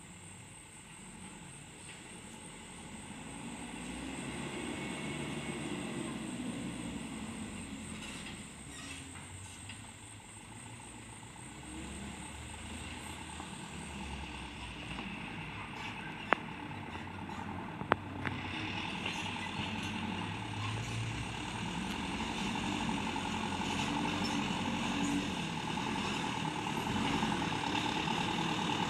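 Mitsubishi Fuso light truck's diesel engine running as it creeps toward the microphone over a rutted dirt track, growing steadily louder. About two-thirds of the way through there are two sharp clicks, a second and a half apart.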